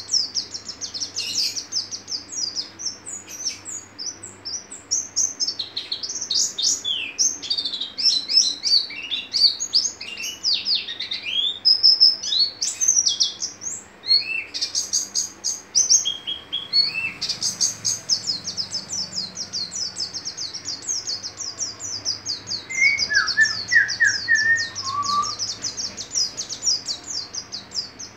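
Caged white-eye (pleci) singing a long, rapid twittering song of high, quick notes, with a short break in the middle and a few lower notes near the end. A faint steady low hum runs underneath.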